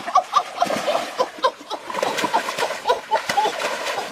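Shallow stream water splashing and sloshing as hands thrash and grab at a fish, with many short, quick splashes. Short high voice sounds come and go over it.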